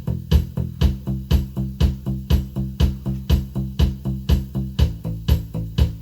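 Background music with a steady beat of about two beats a second over a repeating bass line.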